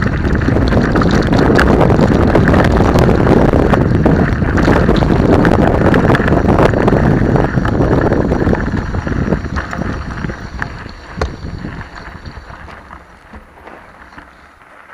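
Wind buffeting the microphone and the rattle of a mountain bike riding fast down a rough dirt track, with many small clicks and knocks. The noise eases off and dies down over the last few seconds.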